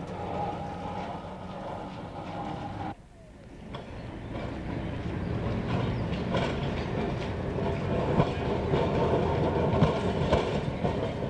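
Street tram running on rails: a steady rumble with the clicks of wheels over the track. It cuts out sharply about three seconds in, then builds back up louder.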